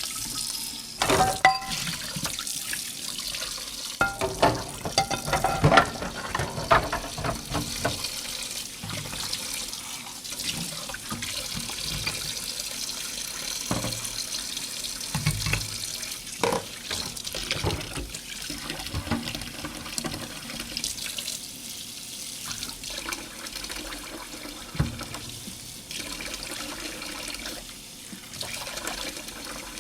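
Dishes being washed in a sink under a running tap: a steady rush of water with clinks and knocks of dishes being handled, busiest in the first several seconds.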